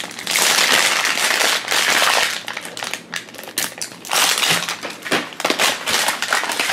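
Thin plastic wrapper on a plastic toy capsule crinkling as it is peeled off by hand. It comes in several crackly spells, the longest about two seconds at the start.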